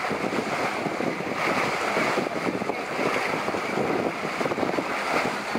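Wind buffeting the microphone over the rush and splash of sea water along the hull of a moving boat, a steady rough noise with no pauses.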